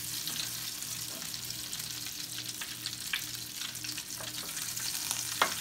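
Butter melting and foaming in hot oil in a frying pan, with a steady crackling sizzle. A single sharp click near the end.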